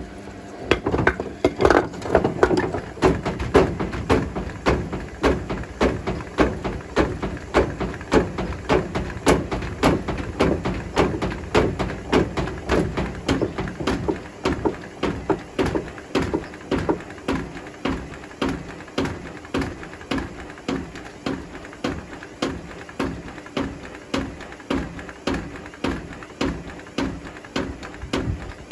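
Bricks knocking and tumbling in the water-filled drum of a Hotpoint Smart Tech WMFUG742 washing machine on a wool wash cycle, with about one and a half knocks a second as the drum turns.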